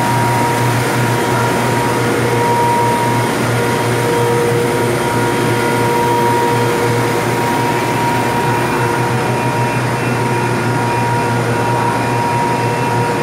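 Steady, loud drone of plastic-film factory machinery: blown-film extruders and roll-winding lines running, with a low hum and a couple of steady whining tones over it.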